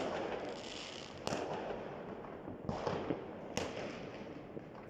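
Fireworks going off across the town: a steady crackle of many distant launches and bursts, with two sharp bangs standing out about a second in and again about three and a half seconds in.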